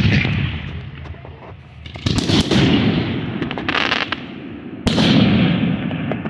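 Aerial firework shells bursting overhead: two heavy booms about three seconds apart, each rolling on for a second or more, with a cluster of sharp cracks between them.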